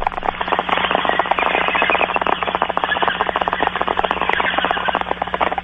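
Bong hit: water bubbling rapidly and steadily through a bong for several seconds, stopping just before the end.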